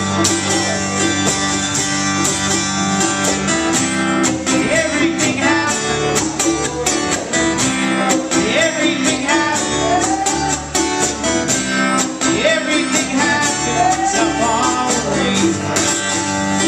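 Live country-style music: a strummed acoustic guitar with an upright double bass plucked along underneath, playing a passage without words.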